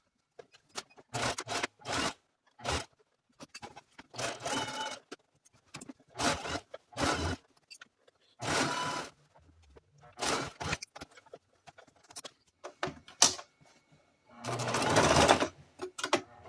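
Domestic sewing machine stitching in short stop-and-start runs, with pauses between, as the fly-front zipper area is topstitched. The longest run comes near the end.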